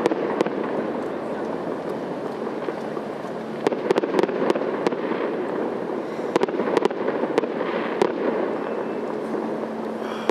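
Fireworks going off: sharp bangs and cracks over a steady background noise. There is a cluster of them about four seconds in and more between about six and eight seconds.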